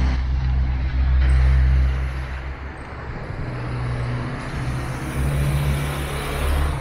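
Road traffic: motor-vehicle engine noise with a steady low hum, loudest about one to two seconds in.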